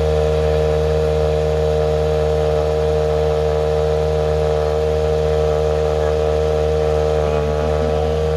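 Ford Puma Rally1's turbocharged four-cylinder engine idling at one steady pitch, with no revving.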